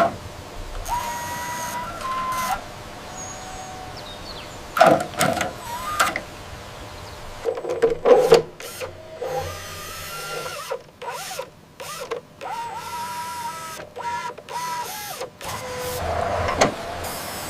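Small electric motors and gearboxes of RC model machinery whining in stop-start runs, the pitch shifting as they speed up and slow down, with several sharp knocks and rattles of plastic parts.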